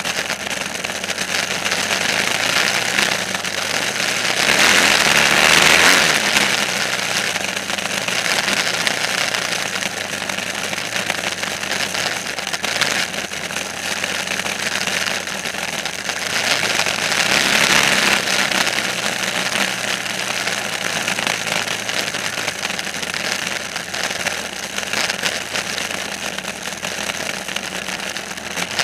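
An engine running steadily, getting louder twice: about five seconds in and again about seventeen seconds in.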